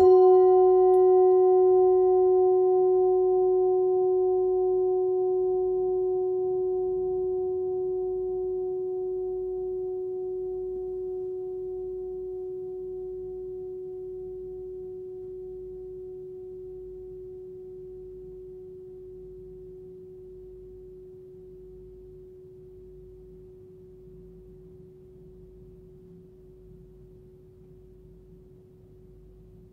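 A 13.5 cm hand-forged singing bowl tuned to about 367 Hz (F#), struck once and left to ring. Its bright upper overtones die away within a few seconds, leaving the single F# note ringing on with a slight wobble and fading slowly over about half a minute.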